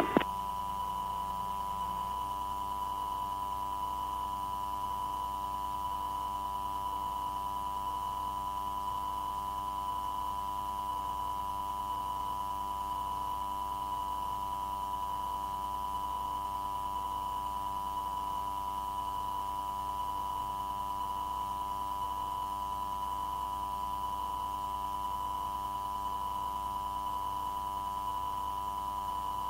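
Steady electronic tone and hum on the recorded radio channel between transmissions: a constant note near 1 kHz with fainter fixed tones around it and a faint regular pulsing underneath.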